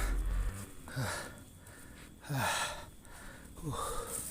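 A man panting hard from exhaustion after heavy exertion: three loud gasping breaths, about one every second and a half.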